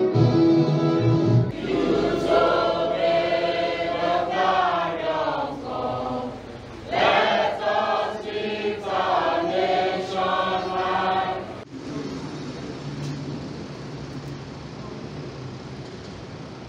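Many voices singing an anthem together over music, breaking off suddenly about twelve seconds in, followed by quieter steady background noise.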